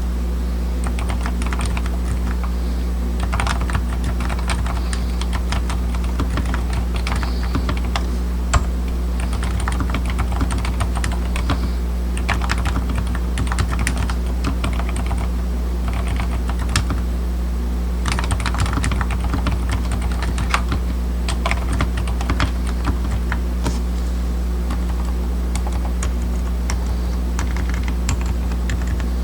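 Typing on a DURGOD K610W mechanical keyboard with low-noise brown switches: quick, uneven runs of key presses with short pauses. A steady low hum runs underneath.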